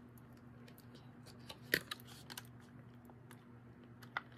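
A few faint clicks and taps of small plastic doll parts being handled, the loudest just under two seconds in, over a low steady hum.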